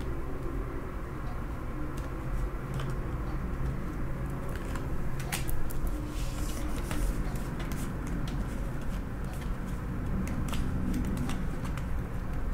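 Tarot cards being dealt off a deck and laid onto a glass tabletop: light clicks and slaps of card on card and card on glass, sparse at first and coming quickly from about halfway through, over a steady low hum.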